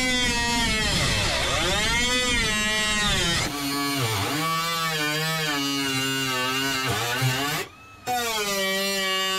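Air-powered die grinder with a cutoff wheel cutting through the rusted sheet-metal floor pan, its whine rising and falling as the wheel loads and unloads. It stops briefly about eight seconds in, then starts up again at a steady pitch.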